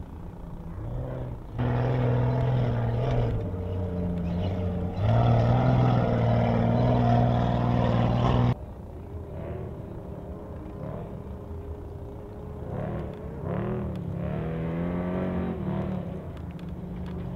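Off-road race truck engines running hard at high revs as the trucks drive past through sand, the note rising and falling with the throttle. The engine sound jumps louder twice in the first five seconds and drops away suddenly past the middle.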